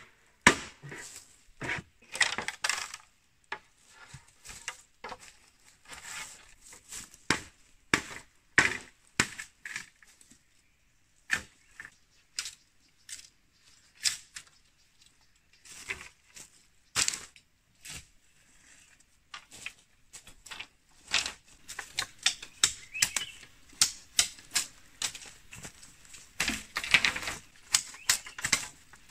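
A machete striking and splitting a green bamboo pole: irregular sharp knocks and cracks of the splitting bamboo. About two-thirds of the way through they thicken into quick runs of clicks as the split strips are worked apart.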